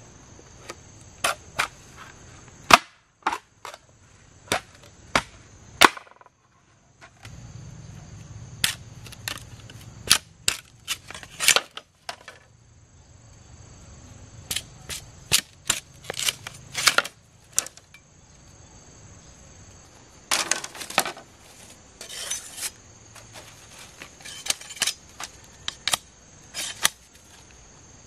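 A tool chopping wood: sharp, irregular strikes in bursts of a few blows, with short pauses between the bursts.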